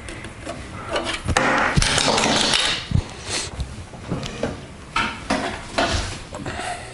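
Plastic blaster parts being handled and set down on a hard surface: scattered clicks and knocks, with a longer, louder clattering rattle from about one to nearly three seconds in, then a few more sharp clicks.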